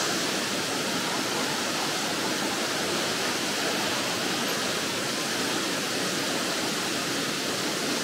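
Wata-ga-taki, a 32 m waterfall, rushing: a steady, even roar of falling water.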